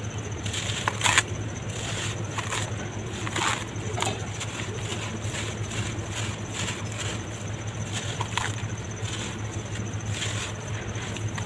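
Chunks of red dirt crumbling in water: irregular soft crunches and crackles, several a second, over a steady low hum.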